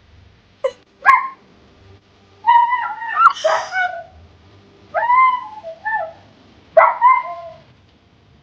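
A dog making high-pitched whines and yelps in several separate bouts: two short yips about a second in, then longer, wavering whining calls.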